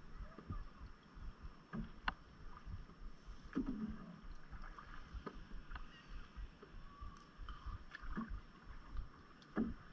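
Canoe being paddled: water splashing and trickling around the paddle and aluminum hull, with a light knock every couple of seconds.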